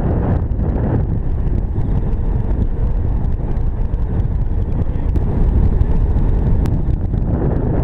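Wind buffeting the microphone: a steady, loud, low rushing noise.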